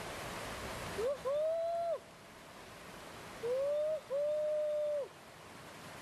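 Two hooting calls, each a short rising note followed by a longer held one that drops off at the end, over the steady rush of stream water.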